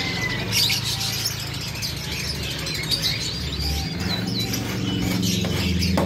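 A flock of caged white Java sparrows chirping, many short high calls overlapping. A steady low hum runs beneath them.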